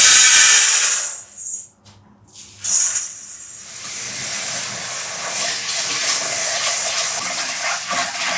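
A loud hiss for about the first second and a half, a brief burst near three seconds in, then a steady rushing hiss that slowly grows a little louder.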